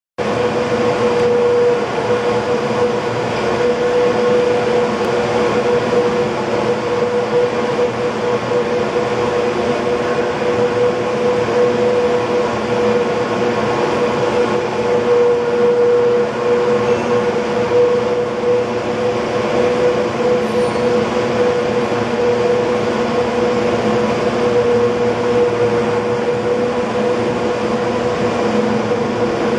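San Francisco cable car power house machinery running: the large winding sheaves turning and steel haulage cables running over their pulleys. A loud, steady mechanical drone with a held hum through it.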